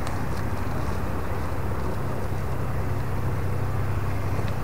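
A steady low rumble, with a few faint rustles of a woven plastic sack being handled near the start and near the end.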